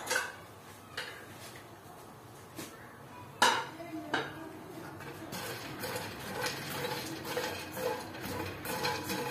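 Metal spoon clanking and scraping in a pan as mixed nuts are dry-roasted and stirred: a few separate knocks in the first half, the loudest about three and a half seconds in, then steady stirring with the nuts rattling from about five seconds on.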